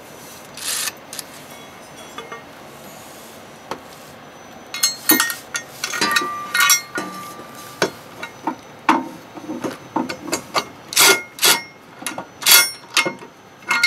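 Metal clinks and knocks of a socket extension against the steel step brackets under a van, several with a short ringing tone, then a few short bursts from a DeWalt cordless impact driver running a bolt in, spaced over the last few seconds.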